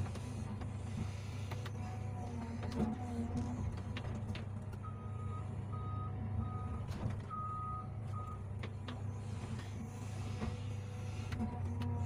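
An excavator's diesel engine runs steadily under hydraulic work while the bucket cuts and scrapes soil on a slope face, with scattered knocks of dirt and stones. About five seconds in, a short run of about five high electronic beeps sounds over roughly three seconds.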